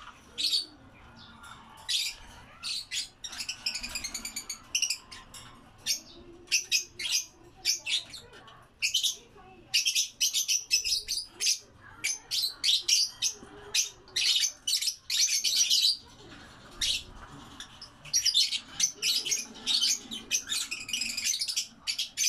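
A cage of lovebirds chirping: many short, shrill chirps coming in quick flurries, with brief lulls between them.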